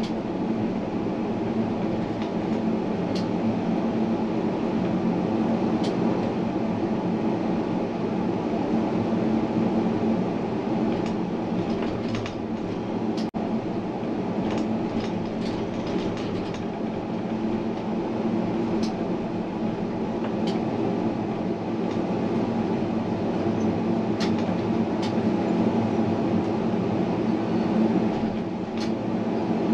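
Tram running along its track, a steady rumble of wheels and running gear with brief sharp clicks scattered through it.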